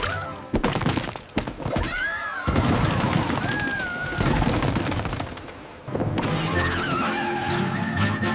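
Cartoon chase music with slapstick sound effects. A dense stretch of rapid clattering impacts carries two whistle-like sliding pitches over it. The music comes back in clearly about six seconds in.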